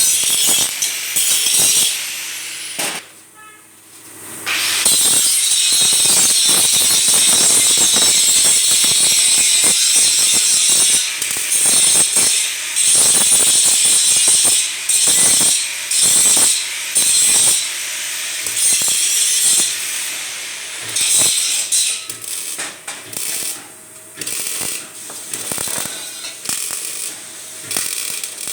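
Power tool working sheet steel, a loud harsh hissing noise that runs in long stretches with short breaks. It pauses for about two seconds near the start and turns choppier and quieter in the last third.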